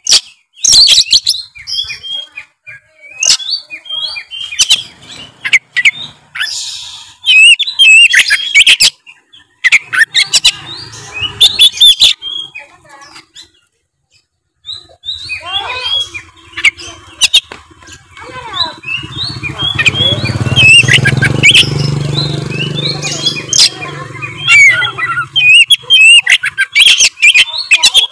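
Oriental magpie-robin (kacer) singing energetically in fast, varied bursts of whistles and chattering notes, broken by a short pause about halfway through. A low steady rumble sits under the song for roughly ten seconds in the second half.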